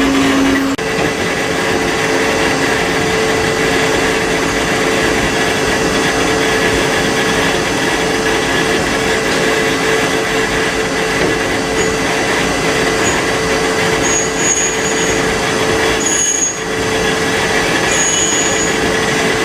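Multi-tasking CNC lathe machining a part during a back-burr deburring pass: a steady machine whine over a noisy cutting hiss. The main tone steps up in pitch about a second in, and there is a brief dip in sound near the end.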